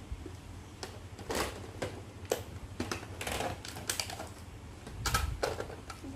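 Irregular plastic clicks and brief rustling bursts, about a dozen in a few seconds, from a Nerf blaster and foam darts being handled.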